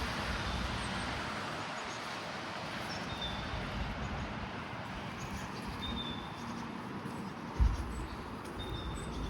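Small birds giving short, high chirps every few seconds over a steady background hum of distant city traffic. There is one brief low thump about three-quarters of the way through.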